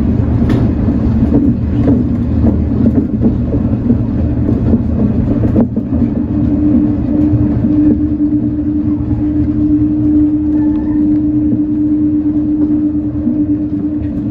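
Shonan Monorail 5600-series suspended monorail car running, heard from inside the front of the car: a steady low rumble from the rubber-tyred running gear. A steady hum at one pitch comes through clearly from about six seconds in.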